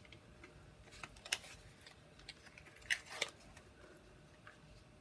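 A handful of light, sharp clicks and taps, the louder ones about a second in and around three seconds in: small craft pieces and tools being handled and set down on the work surface.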